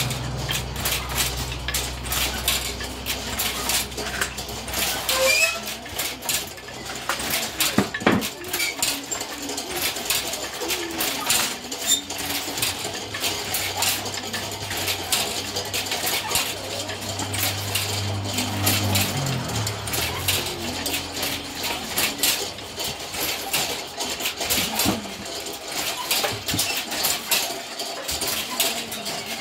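Clatter of several Kente narrow-strip looms being worked at once: quick, irregular wooden clacks and knocks. A low hum runs under them in the first few seconds and again around the middle.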